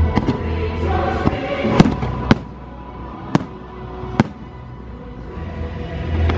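Aerial fireworks bursting over a fireworks show's soundtrack music, with four sharp bangs standing out in the middle and a few lighter pops before them. The music drops back while the bangs go off and swells again near the end.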